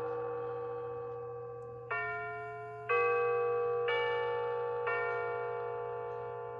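Battery clock movement's electronic chime playing a bell melody. New notes sound about a second apart at changing pitches, each ringing and fading.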